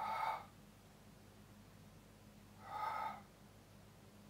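A man taking two short, sharp breaths about three seconds apart, the effort breathing of abdominal crunches done one after another.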